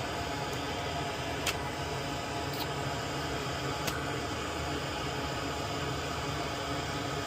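Steady fan-like whir and hiss, with a few faint light clicks about one and a half to four seconds in.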